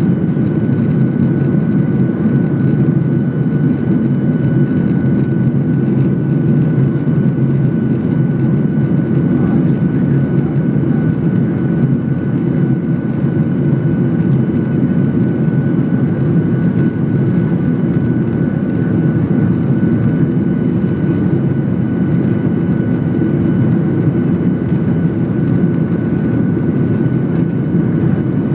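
Boeing 737-900ER's CFM56-7B turbofan engines heard from inside the cabin over the wing: a steady, dense rumble with a thin, even whine on top.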